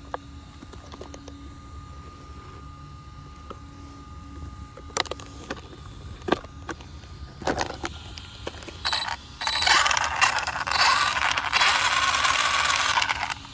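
Arrma Typhon 3S BLX brushless RC buggy running, with scattered clicks and knocks. Then a loud rasping noise lasts about four seconds late on and stops abruptly.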